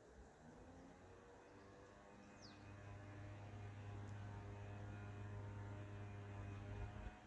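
A low steady mechanical hum with many overtones, growing louder about a third of the way in. A single short, high, falling bird chirp comes near the middle.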